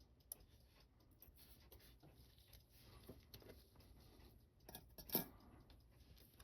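Near silence broken by faint small clicks and taps of watchmaking tools on watch parts. The sharpest tap comes about five seconds in.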